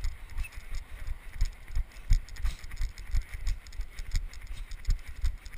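Running footsteps on a snow-covered trail, with the camera jolting at each stride: a steady rhythm of low thumps, about three a second, each with a light crunch.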